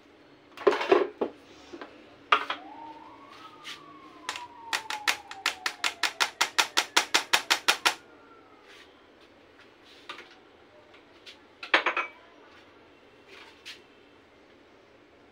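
Spoon knocking and scraping against a kadhai as melting cream is stirred for ghee. A few clatters are followed by a quick run of about six taps a second lasting some three seconds, and another clatter comes near the end.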